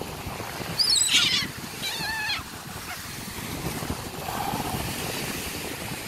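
Gulls calling a few times, short squawking calls about a second in and again at about two seconds, over wind buffeting the microphone.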